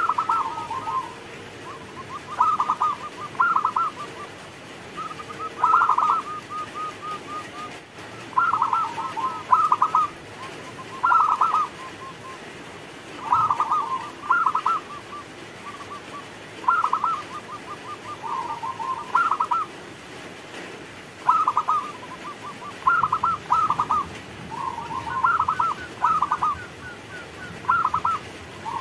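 Zebra dove (perkutut) singing: about a dozen phrases of quick stuttering coos, some run together with a short rapid trill, repeated every two to three seconds.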